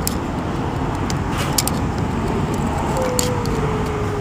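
Small sharp metallic clicks of a tool picking a jammed stick out of a gate lock cylinder's keyway, over a steady low outdoor rumble. Near the end a thin tone falls slightly in pitch for about a second.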